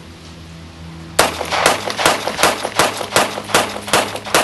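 CZ P-09 9mm pistol fired in a rapid string of shots, about four or five a second, starting about a second in.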